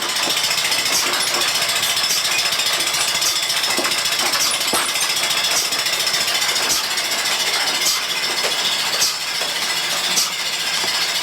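Milking machine running on a cow, with a steady hiss and the pulsator clicking about once a second: the teat cups are on and holding vacuum, so the machine is pulsating.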